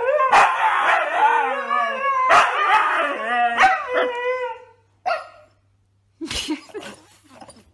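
A dog barking and yelping in a rapid run of pitched calls for about four and a half seconds, then, after a short pause, a few brief sharp sounds.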